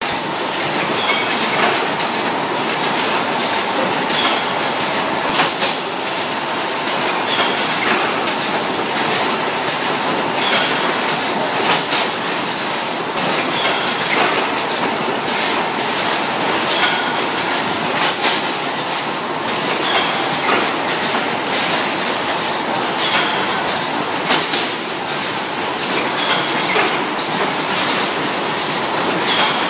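Automated stick ice cream production line running: a steady mechanical clatter of conveyor and carriers, with sharp clacks repeating every second or two.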